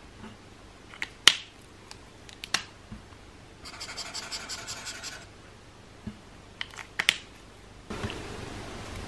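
Dual-tip alcohol marker on paper: sharp clicks of the marker cap being pulled off and snapped on, and the fine tip scratching out a wavy line in quick strokes for about a second and a half near the middle. A steadier scratch begins near the end as the broad chisel tip starts a stroke.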